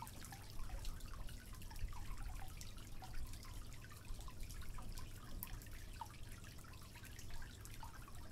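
Water dripping and trickling: many small drops plinking irregularly over a low steady rumble.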